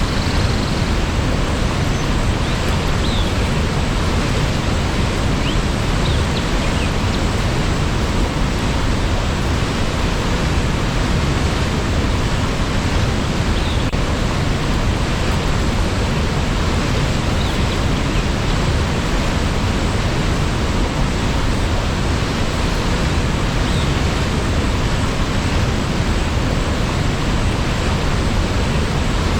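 Waterfall: falling water rushing with a steady, loud, unbroken sound.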